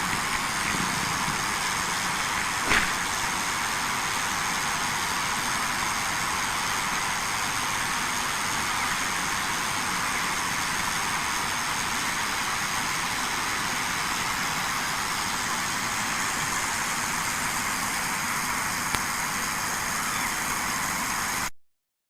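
Corona discharge on high-voltage transmission lines: a steady hiss, the sign of the air ionising around the energised conductors, a condition that can degrade insulators. One sharp crack about three seconds in, and the hiss cuts off suddenly near the end.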